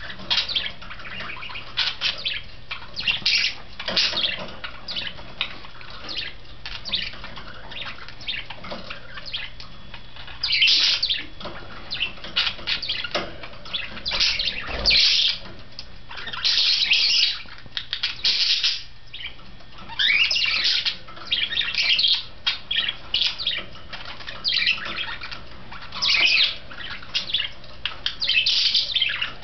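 Pet budgerigars chattering and chirping in short bursts throughout, the calls growing louder and longer from about ten seconds in.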